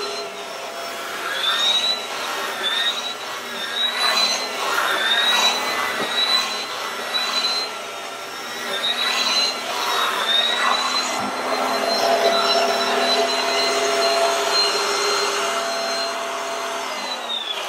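Bissell Pet Hair Eraser Turbo Rewind upright vacuum cleaner running, its motor whine wavering up and down in pitch as it is worked. Near the end it is switched off and the whine falls away.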